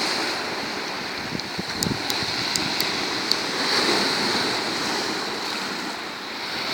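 Black Sea surf washing onto the shore, a steady rush that swells and eases, with a few short sharp clicks in the first half.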